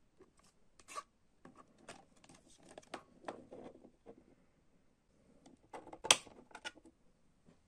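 Plastic CD jewel case being handled and opened, a run of small clicks and rattles. About six seconds in comes the loudest, sharp click as the disc is pressed off the case's centre hub.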